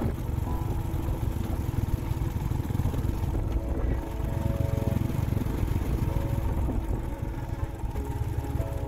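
Motorcycle running steadily at riding speed, a continuous low rumble.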